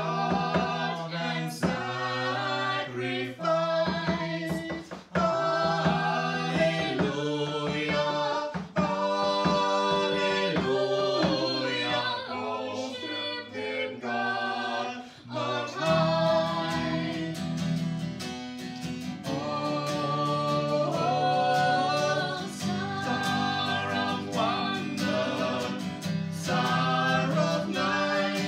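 Two men and a woman singing a Christmas carol together in harmony, accompanied by a strummed acoustic guitar, which sounds fuller from about halfway.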